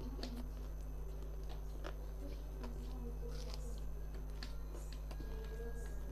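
Close-up eating sounds: a hand squeezing rice mixed with fish gravy, and chewing, heard as scattered short wet clicks over a steady low hum.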